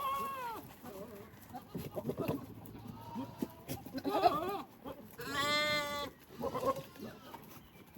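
Goats bleating: a call right at the start, shorter calls through the middle, and a long, steady bleat about five seconds in.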